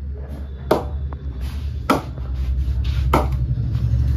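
Cricket ball bounced on the face of a Kookaburra Kashmir willow cricket bat in a ping test of the willow's rebound: three sharp knocks a little over a second apart.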